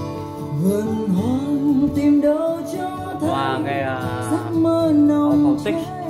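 Music: a sung melody that wavers with vibrato over guitar accompaniment.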